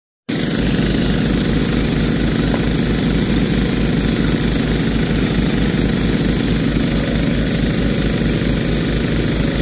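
Small gas engines on a floating gold suction dredge running steadily at working speed, driving the dredge's water pump, with a fast, even low thrum. The sound cuts in abruptly at the start.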